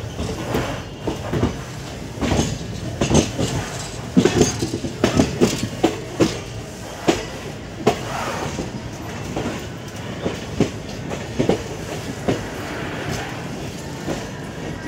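Passenger train coach's wheels clacking irregularly over rail joints and points under a steady rolling rumble, heard at the open coach door.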